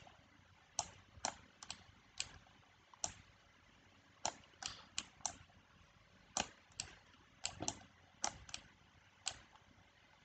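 Faint, scattered clicks of a computer mouse and keys being worked, about two a second at uneven spacing, some in quick pairs.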